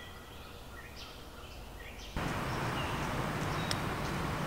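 Outdoor park ambience with small birds chirping in short bursts; about two seconds in, a louder, steady hiss of outdoor background noise cuts in abruptly.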